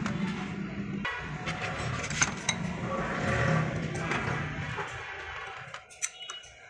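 Light metallic clicks and taps as a removed throttle body is handled on a workbench. Behind them runs a steady vehicle engine hum that fades out about five seconds in.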